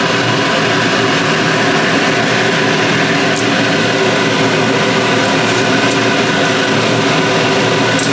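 Steady, unchanging machine whir with several steady tones in it.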